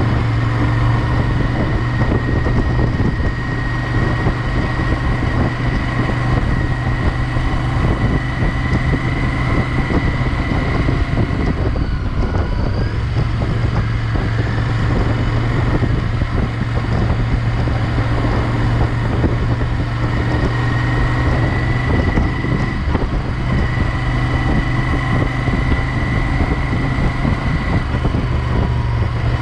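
Royal Enfield Interceptor 650's 648 cc parallel-twin engine running steadily while the bike rides through city traffic, heard from the rider's seat as an even low drone.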